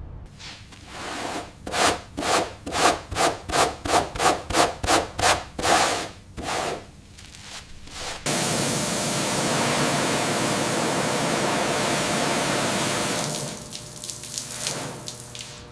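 Hand sanding strokes on a car part, about three a second, rubbing back and forth. About eight seconds in they give way to a sudden steady hiss that fades near the end.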